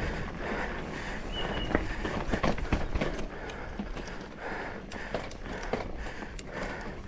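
A mountain biker breathing hard in quick, repeated breaths, with scattered sharp clicks and knocks from the bike and the rocky ground.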